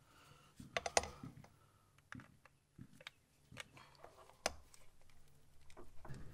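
Spring clip being worked off a rubber PCV hose with a hand tool: scattered light metallic clicks and scrapes, irregular and faint, with a few sharper clicks about a second in and again a little past the middle.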